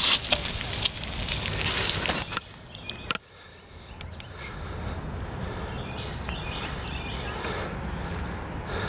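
Bicycle tyres rolling over a wet gravel trail, crunching and rattling for the first couple of seconds before it stops suddenly. After that there is a steady low outdoor noise with faint bird calls.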